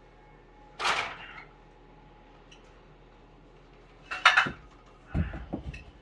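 Demolition of basement wall framing: a sharp clatter about a second in, a louder one about four seconds in, then several dull thuds near the end, like tools and boards striking and being knocked loose.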